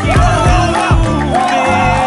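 Upbeat pop music with a steady drum beat and a sung melody.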